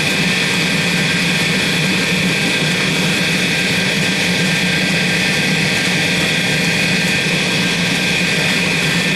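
A blacksmith's forge running with a steady, even rushing noise and a low hum, no hammer blows: the forge heating the billet to welding heat.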